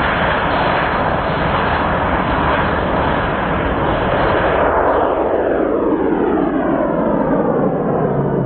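YT Pantera RC model jet's engine running loud and steady through its take-off run and lift-off. About five seconds in, as the jet climbs away, a falling, sweeping whoosh comes into the roar.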